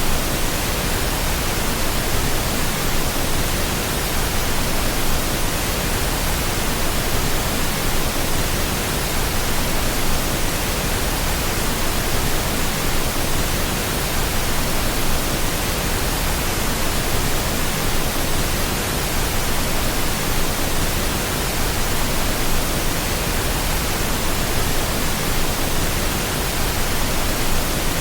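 Steady pink noise: an even, unchanging hiss spread across all pitches, with no breaks.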